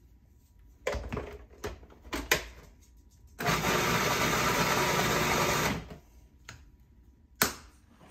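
Food processor running for a little over two seconds in the middle, chopping a brown mixture. A few short knocks and clicks come before it, and a sharp click near the end.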